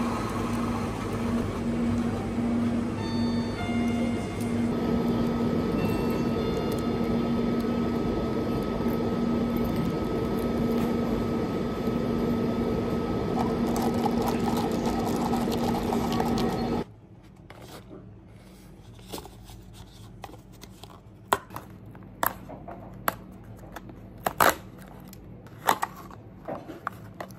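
Convenience-store coffee machine running with a steady low hum as it pumps milk into a cup, with a few short high tones a few seconds in. It cuts off suddenly about two-thirds of the way through, giving way to light clicks and taps of a small cardboard box being handled.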